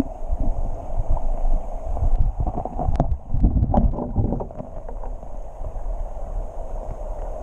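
River water sloshing and splashing around hands as a small brook trout is held in the current for release, with a flurry of splashes about three to four seconds in. The steady rush of the stream and wind rumbling on the microphone run underneath.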